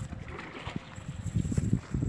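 A fishing net being handled and pulled from a blue plastic sack, with faint rustling and crackling, under a low rumble of wind on the microphone.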